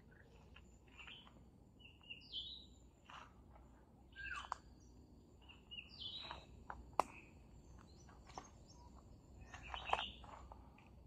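Wild birds chirping and calling in short, scattered high notes along a forest trail. A sharp click about seven seconds in is the loudest sound, and a cluster of louder chirps comes near the ten-second mark.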